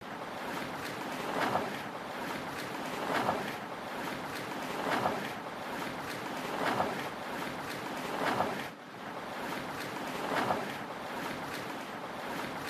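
Ocean-wave sound effect: a steady rushing hiss that swells about seven times, every couple of seconds.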